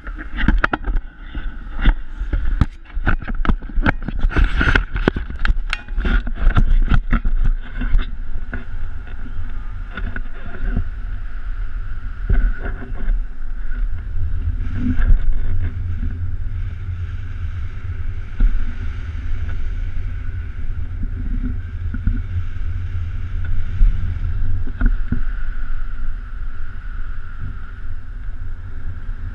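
Wind buffeting a GoPro's microphone in paraglider flight: a steady low rumble, with a quick run of knocks and crackles through the first eight seconds or so.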